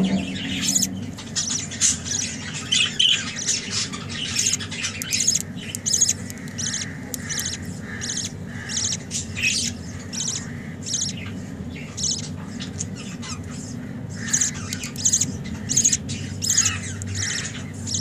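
Budgerigars chirping and squawking in quick, short, high calls, several a second, one after another, while a fallow budgerigar hen feeds her chick in the nest pot. A faint low hum runs underneath.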